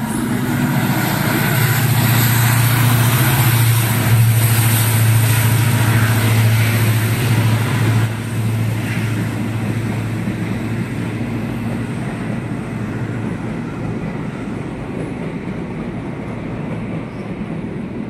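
A diesel locomotive hauling a passenger train runs past, its engine giving a steady low drone that is loudest in the first half. The drone fades away as the coaches roll by, leaving a dying rumble of wheels on track.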